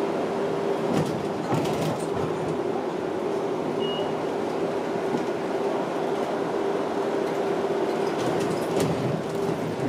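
Cabin noise of a moving public-transport vehicle: a steady running rumble with a constant hum, and a few short rattles about a second in and again near the end.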